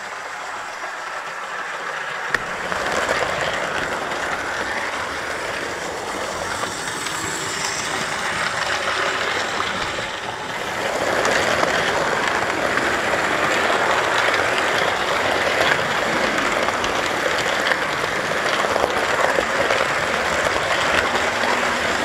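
Model train running along the layout track, heard from the camera wagon riding at its front: a steady rolling noise of small wheels on rail that gets louder about halfway through.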